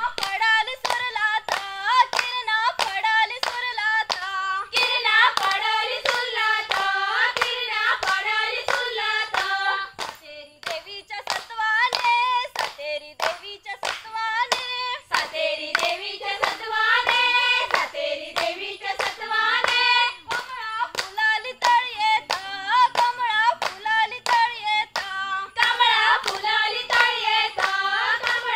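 A group of women singing a Konkani folk song together, clapping their hands in a steady rhythm as they dance. About ten seconds in, the singing pauses for a few seconds while the clapping goes on, then it returns.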